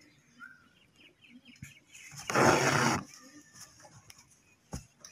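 Embroidery thread pulled through cloth stretched on a hoop: one loud rasping swish about two seconds in, lasting under a second, with a sharp tick near the end. Faint bird calls in the background.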